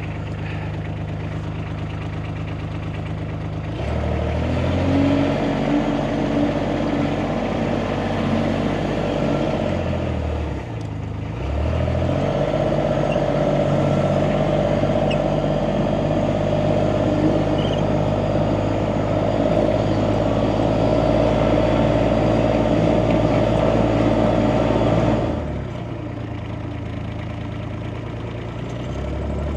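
Compact yard loader's diesel engine running just after a glow-plug cold start in frost. It idles, is revved up about four seconds in, dips briefly and picks up again around eleven seconds, runs at higher revs, then drops back to idle about four seconds before the end.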